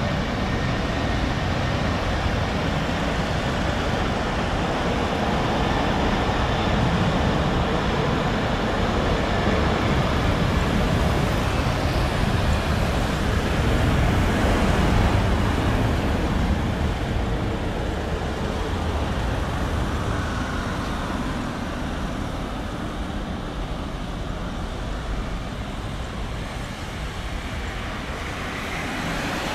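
Twin-engine wide-body jet airliner at takeoff power, rolling down the runway and lifting off: a steady deep jet rumble that swells to its loudest about halfway through, then slowly fades as the plane climbs away.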